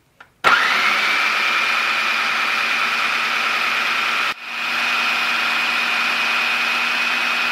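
Electric food processor motor switching on about half a second in, its whine rising quickly to speed and then running steadily as it grinds cooked chicken mince and chana dal into kebab paste. The sound briefly drops out about four seconds in, then the processor runs steadily again.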